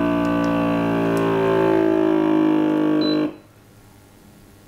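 Countertop vacuum sealer's pump running as it draws the air out of a bag, a steady hum whose pitch sinks slightly as the vacuum builds. It cuts off suddenly about three seconds in, just after a short high beep, once the bag is pulled tight.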